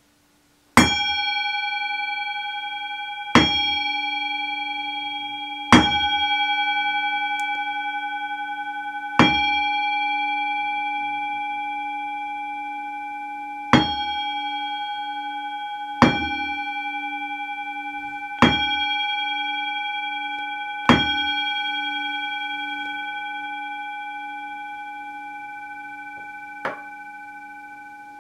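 Brass singing bowl struck eight times at intervals of two to four seconds, then once more lightly near the end. Each strike sets off long ringing with clear overtones over a low wavering hum, which slowly fades between strikes.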